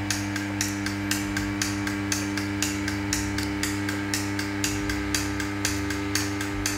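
Comunello sliding-gate operator's electric motor running and turning its output pinion gear: a steady hum with a regular ticking of about four ticks a second. It is running on command from a newly paired remote control.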